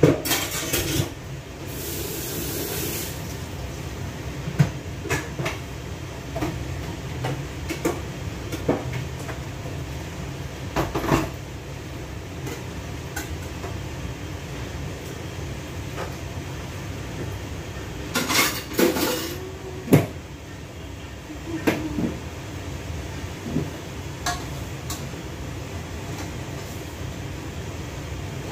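Kitchenware being handled: dishes, pots and utensils clinking and knocking in scattered clicks, with a busier clatter about two-thirds of the way through. A steady low hum runs underneath.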